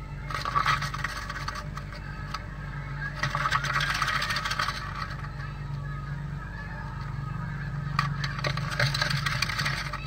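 A blue tit pecking and scraping at the inside wall of a wooden nest box: three bursts of rapid tapping and scratching, near the start, in the middle and near the end, over a steady low hum.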